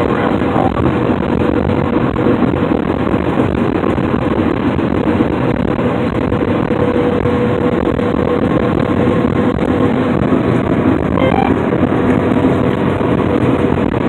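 John Deere S670 combine running steadily while harvesting wheat: a loud, even drone of engine and threshing machinery with a constant hum under it.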